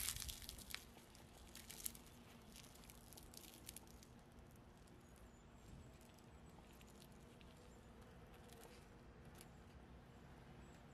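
Crisp crust of a deep-fried potato-and-dough fritter crackling as gloved fingers tear it open: a run of sharp crackles in the first two seconds, then only faint scattered ticks over near silence.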